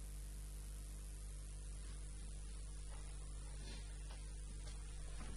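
Steady electrical mains hum over a faint hiss.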